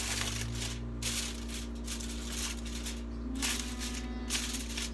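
Intermittent rustling and handling noise, short hissy bursts about once a second, over a steady low electrical hum.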